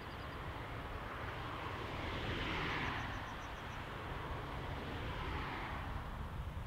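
Distant vehicle noise swelling to a peak two or three seconds in, then fading away, over a steady low rumble.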